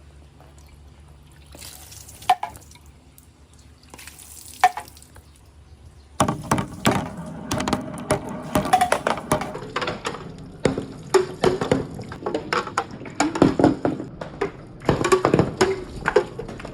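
Marbles on a handmade marble run: two single clicks, then from about six seconds in a dense, continuous clatter of many marbles rolling and knocking together around the orange circular slope.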